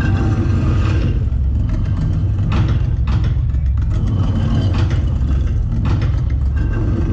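A loud, deep rumbling drone from the sound-and-light show's soundtrack over loudspeakers, with four short rushing swells in the middle of it.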